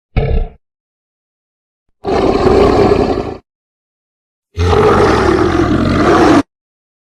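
Three roar sound effects in a row: a short one at the start, then two long, loud, rough roars of about one and a half to two seconds each, every one cut off abruptly into dead silence.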